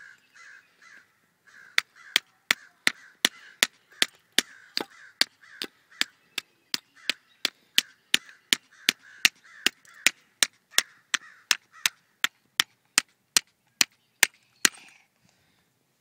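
A hammer striking a brick over and over in a steady rhythm, sharp taps about three a second that stop near the end.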